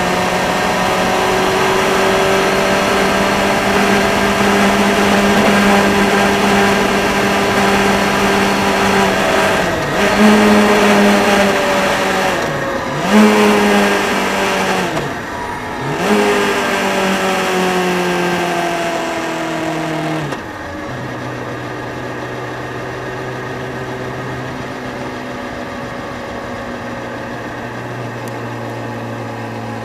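Motorcycle engine and wind rush while riding at a steady cruising speed; three times the engine note dips and picks up again as the throttle is eased and reopened. About two-thirds through, the engine note drops to a lower steady speed and the wind rush fades as the bike slows down.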